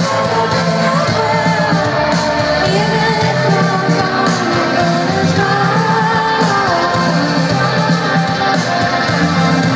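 Live pop band playing a slow, steady-beat song with a woman singing the melody over it.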